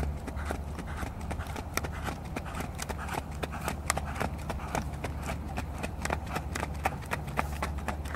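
Hoofbeats of a ridden Icelandic horse at a tölt on a gravel track: a quick, fairly even run of sharp clicks.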